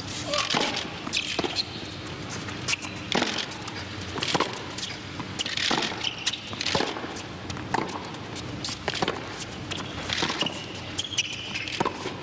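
Tennis rally on a hard court: a tennis racket strikes the ball back and forth as sharp hits about every second, over a steady low crowd hum.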